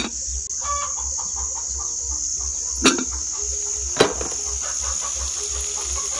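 Chickens clucking over a steady high chirring of insects, with two sharp knocks about three and four seconds in.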